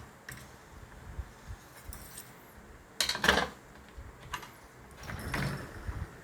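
Polishing stone on a guided knife-sharpening system working a blade: light clicks and taps, with two louder short scraping strokes, about three seconds in and again near five and a half seconds.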